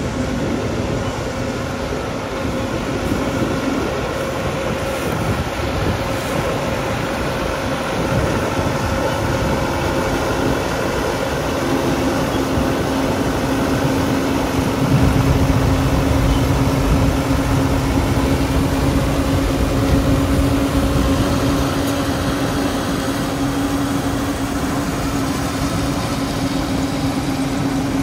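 Peanut harvester running steadily, a machine noise with a constant hum through it. A deeper rumble joins about halfway through.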